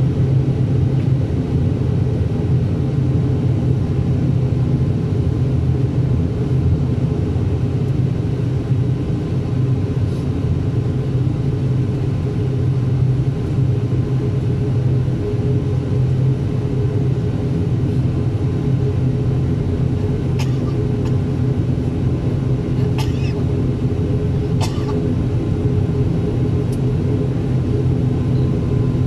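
Steady drone of an ATR 72 turboprop's engines and propellers, heard inside the cabin as the airliner taxis after landing. A few faint clicks sound a little past the middle.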